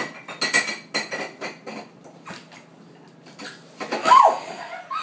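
Dishes and cutlery clinking and knocking in a kitchen sink as they are handled. About four seconds in comes a sudden loud burst of hiss: water spraying out of the rigged sink.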